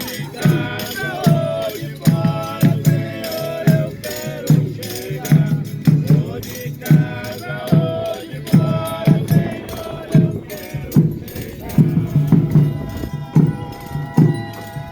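Folia de Reis folk music: voices singing over a steady beat of drum and shaken tambourine or rattle percussion.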